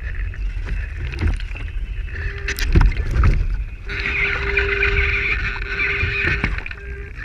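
Water slapping and splashing against the hull of a radio-controlled IOM model yacht under sail, with a low rumble and irregular knocks. About four seconds in, a steady whine joins and runs for several seconds.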